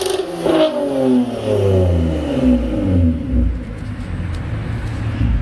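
Toyota Camry exhaust with the muffler and both resonators deleted: the engine's revs fall away from a high rev over about three seconds, then it settles into a steady, loud idle.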